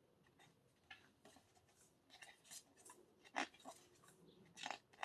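Quiet handling of photocards: soft rustles and light clicks of card against card, with a couple of slightly louder taps near the middle and the end.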